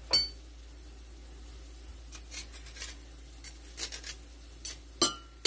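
A metal clink, then light scratching of a table knife scraping lemon zest off a stainless rasp grater, and two sharp clinks of metal against a ceramic bowl near the end.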